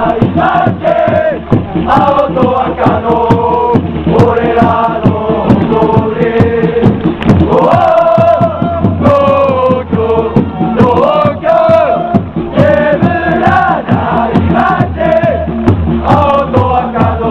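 A large crowd of football supporters singing a chant in unison over a steady beat.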